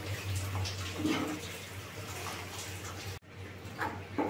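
Thick tomato and vegetable soup simmering in a pan while a steel ladle stirs it: soft bubbling and sloshing over a low steady hum, which breaks off abruptly a little past three seconds in.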